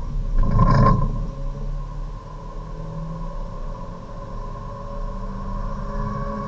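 Hyundai Avante race car's four-cylinder engine pulling hard under full throttle in third gear, heard from inside the cabin, its note climbing steadily as the revs rise toward about 6,000 rpm. A loud rough rumble comes in the first second.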